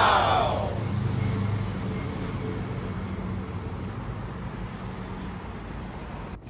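Steady background road-traffic noise with a low hum. In the first second a loud whistle-like pitched glide falls away and fades out.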